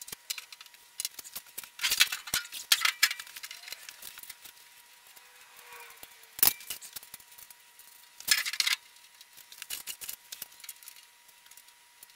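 Clatter and clicks of the steel panels and bolts of a Central Pneumatic blast cabinet being fitted together, with rapid runs of metal knocks about two to three seconds in and again near eight seconds, and one sharp click between them.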